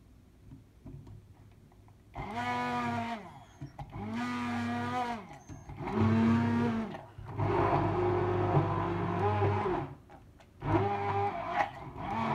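Hand-held stick blender run in five short bursts, starting about two seconds in, puréeing chickpeas in a jug. Its motor whine rises as it spins up and drops as each burst stops, and the longest burst comes in the middle.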